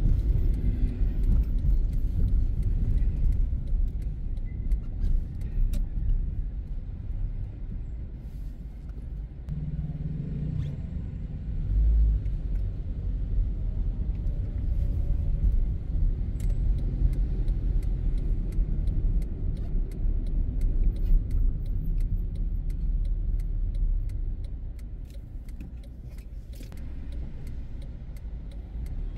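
Low, steady rumble of a car's engine and tyres, heard from inside the moving car's cabin, with a brief swell in level about twelve seconds in.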